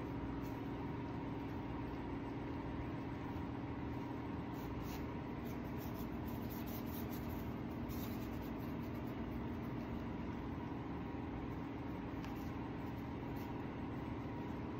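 Steady hum of a through-wall air conditioner running: a low drone with a faint whine over an even rushing noise, with a few faint ticks over it.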